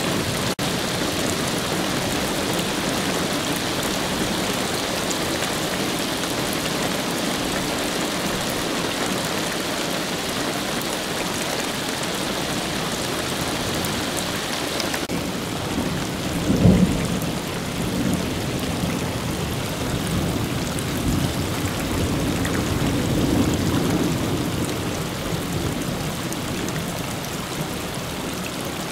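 Heavy rain falling steadily during a thunderstorm. Thunder rumbles once, sharply, a little past the middle, and again more softly a few seconds later.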